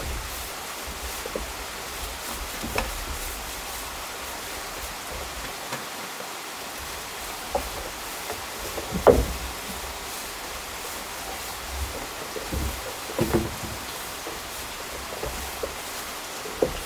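Steady rushing hiss of a forest stream, with a few scattered knocks on a wooden plank deck, the loudest about nine seconds in.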